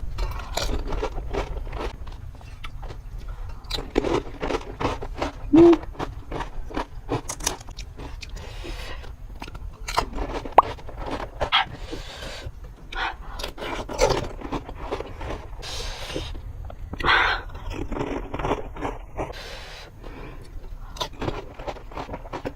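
Close-miked eating of pani puri: crisp puri shells crunching between the teeth, with chewing and wet mouth sounds, many short crunches and clicks in quick succession.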